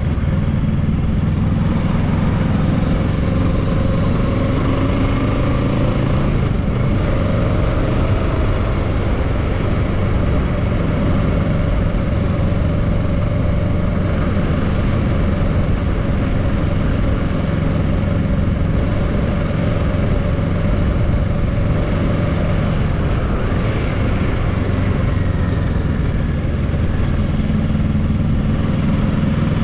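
2022 Kawasaki Z650's 649 cc parallel-twin engine running steadily, with small rises and falls in pitch.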